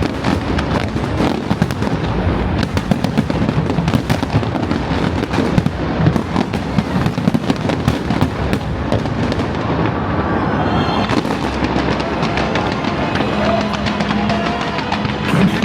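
Fireworks going off in a dense, continuous barrage of rapid bangs and crackles, many a second, thinning slightly after about ten seconds.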